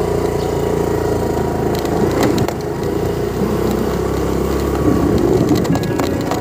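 Motor scooter's engine running steadily while riding over a rough dirt road, with scattered knocks and rattles from the bumps.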